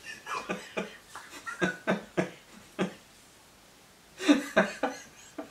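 A woman laughing in short bursts, muffled into her hands as she tries to hold it in. It goes quiet for about a second past the middle, then breaks out again.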